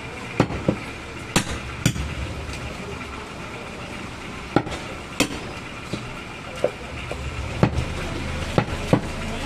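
Butcher's cleaver chopping goat meat on a round wooden chopping block: about ten sharp chops at uneven intervals, over a steady background noise.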